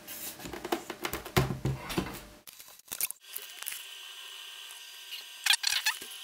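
Clicks and knocks of a hand handling a FireWire RAID drive enclosure. After a cut, a steady hum with a higher whine follows: the enclosure running with its two 7200 rpm hard drives, broken by a few sharp clicks near the end.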